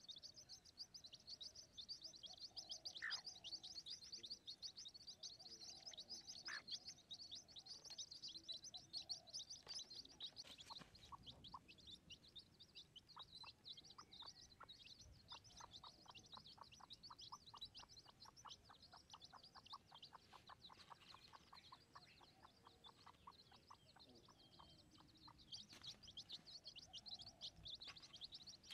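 Wild chicken chicks peeping rapidly in high, thin chirps. In the middle the chirping thins out and a steady series of short, lower pips runs at about three a second.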